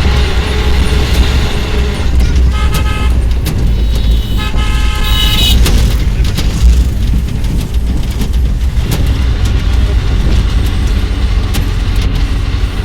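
Steady low rumble of a vehicle on the road, with a horn sounding twice: a short blast a couple of seconds in, then a longer one about two seconds later.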